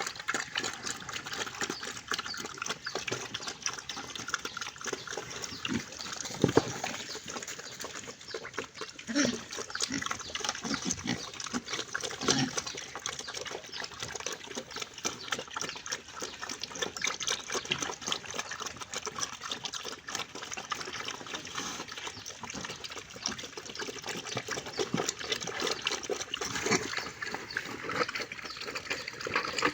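Wild pigs feeding: continuous wet chewing and smacking, many small crunching clicks, with a few short low grunts.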